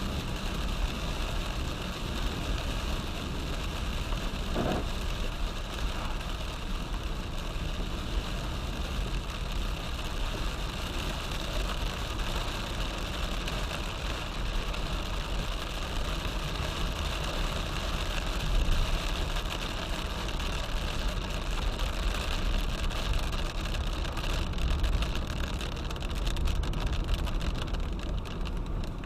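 A car driving through heavy rain: a steady hiss of rain over a low rumble of road and engine.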